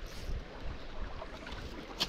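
Steady rush of a shallow, shingle-bottomed stream running past, with an uneven low rumble underneath.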